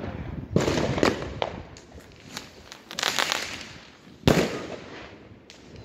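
Fireworks going off: several sharp bangs in the first second and a half, a spell of rapid crackling about three seconds in, and the loudest bang a little after four seconds.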